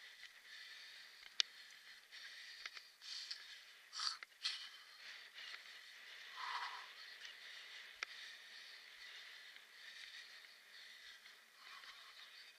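Faint rattling and scraping of a kick scooter ridden over bumpy grass, with a few sharp clicks.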